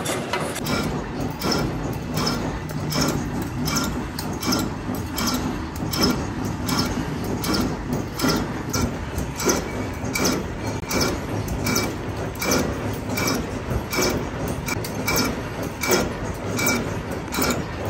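Workshop machinery running with a steady rhythm of ringing metal clicks, a few a second, over a continuous low machine noise.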